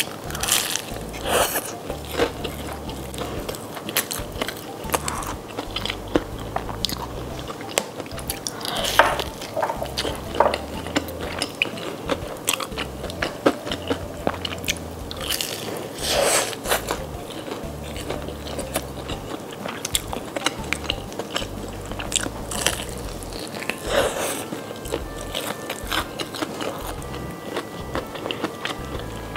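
Close-miked biting and chewing of crispy fried chicken breading: repeated sharp crunches, with a few louder bites several seconds apart between softer chewing.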